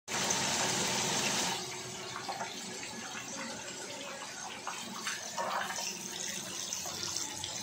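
Hot oil sizzling steadily as fish fry in a pan, with small crackles; louder for the first second and a half, then softer.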